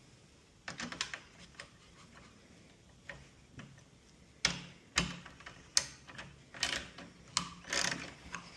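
Irregular sharp clicks and taps of small bolts being fitted into a plastic radio fascia to hold the air vents. They are sparse at first, then louder and more frequent from about halfway in.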